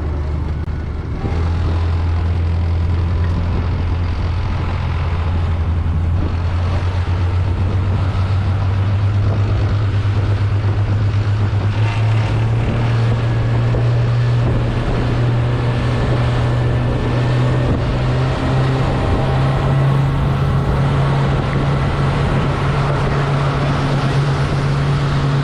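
Fishing boat's engine running under way with wind and water rushing past; its low hum climbs in pitch in steps, about a second in, near the middle and again later, as the boat speeds up.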